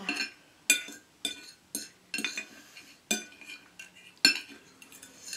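Metal fork and knife clinking and scraping against a plate while cutting and eating food, with half a dozen or so sharp clinks, the loudest about four seconds in.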